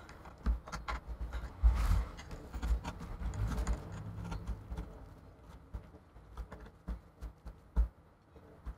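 Irregular taps, clicks and dull low bumps from hands working over an opened iMac's chassis, picking and rubbing old sticky adhesive off by hand. It thins out towards the end.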